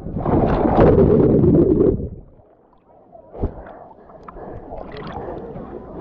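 Loud rushing of a rider sliding down a wet inflatable water slide, cutting off sharply about two seconds in as she goes into the lake. Then a muffled quiet with one short knock, followed by water sloshing and lapping around a camera at the surface.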